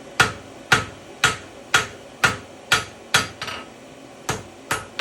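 Hammer blows on hot iron over an anvil in hand forging: seven evenly paced ringing strikes about two a second, a pause of about a second, then two more.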